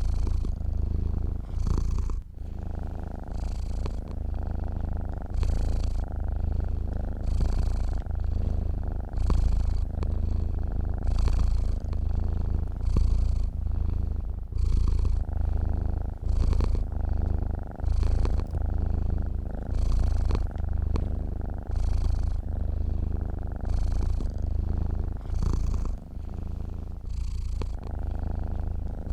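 A sleeping domestic cat purring steadily, the purr rising and easing with each breath about once every two seconds.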